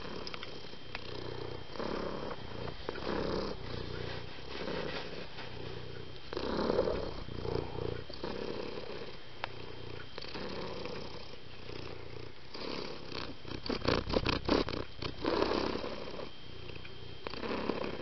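Domestic cat purring in a steady rhythm of in-and-out breaths, with a quick run of crackling clicks a little past two-thirds of the way through.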